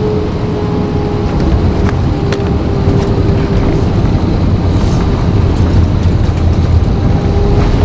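Airbus A320 touching down and rolling out on the runway, heard from inside the cabin: a loud, steady rumble of engines and runway with a droning tone over it. The rumble grows louder from about two seconds in, where a few sharp clicks sound.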